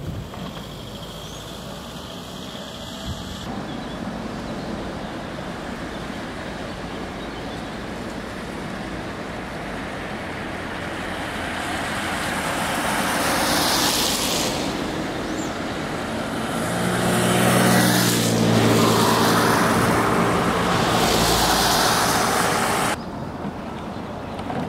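Road traffic passing close by: a steady rush of tyre and engine noise that swells in the second half as vehicles go by, one with a low engine hum. The sound cuts off suddenly about a second before the end.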